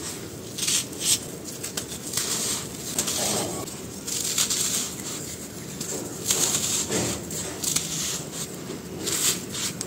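Dry sand-cement chunks crushed and crumbled by hand, giving gritty crunches and the hiss of powder pouring onto a dusty pile, in repeated surges.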